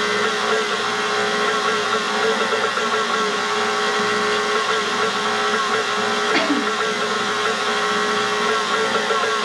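Electric stand mixer running steadily, its motor giving an even whine as it mixes sourdough bread dough. There is a short knock about six seconds in.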